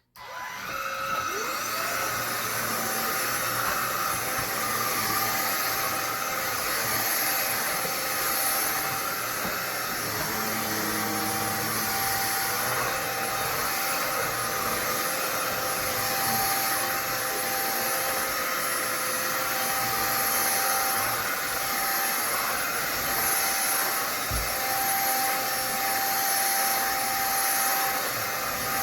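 BuTure VAC cordless stick vacuum switched on, its motor spinning up with a rising whine over the first second or two, then running steadily at full speed with a high-pitched whine.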